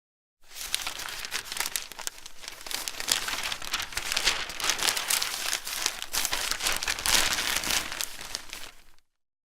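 Newspaper being handled and its pages turned: continuous dry rustling and crackling of paper, full of small crisp crinkles. It starts abruptly just after the beginning and cuts off suddenly near the end.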